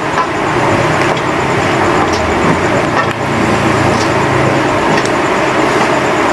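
A gas wok burner running with a steady rush, with a few sharp clinks of a metal ladle against the wok as red chilies are stirred in it.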